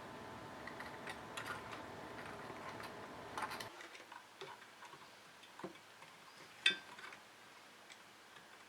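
Scattered small clicks and taps of hard objects being handled, over a steady hum with a faint tone that cuts off suddenly a little under halfway through.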